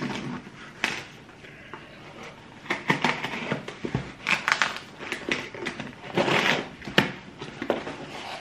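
Parcel packaging being torn open and handled by hand: irregular rustling and tearing with scattered sharp clicks.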